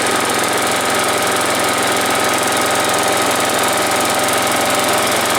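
Briggs & Stratton engine of a Hayter Harrier 41 rotary lawnmower running steadily at working speed. The deck is set too high, so the blade is not yet cutting grass.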